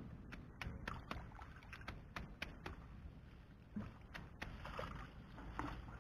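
Faint, irregular scratching clicks of hands scraping and digging in dry, dusty soil, several a second at first and sparser after about three seconds.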